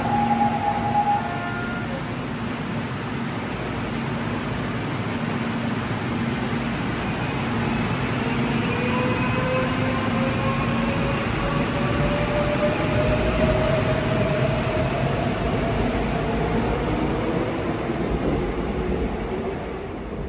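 Seoul Subway Line 4 electric train pulling out of the station, its rumble joined by a motor whine that rises slowly in pitch as it speeds up. A steady electronic beep cuts off about a second in.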